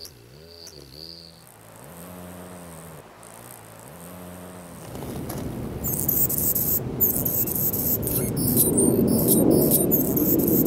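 A male black-chinned hummingbird's wings humming through its shuttle display, the hum rising and falling in pitch about twice a second as it swings back and forth. About five seconds in this gives way to a louder hum and then a male Anna's hummingbird's high, scratchy song in short, broken phrases.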